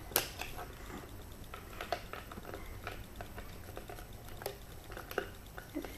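Small plastic toy pieces of a Pinypon airplane playset being handled and put away: scattered light clicks and taps, the sharpest one right at the start.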